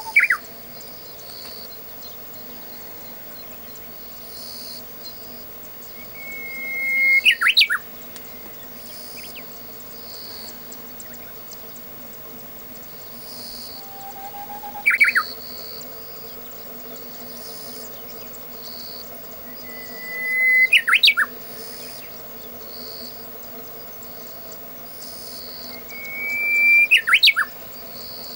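Japanese bush warbler (uguisu) singing its "hoo-hokekyo" song: a held whistle that swells in loudness, then a quick warbled flourish. The phrase comes five times, about every six seconds.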